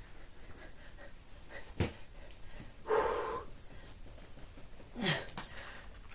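A few breathy exhales, the second one voiced and falling in pitch, with a single sharp click just under two seconds in.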